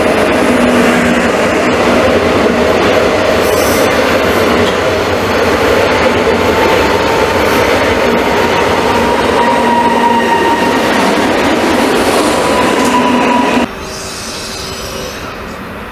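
PKP Intercity ED161 (PESA Dart) electric multiple unit passing slowly at close range: loud, even running noise with a steady whine that rises slightly in pitch late on. About 13.5 seconds in it cuts off abruptly to the quieter sound of a distant ES64F4 electric locomotive approaching with a container train.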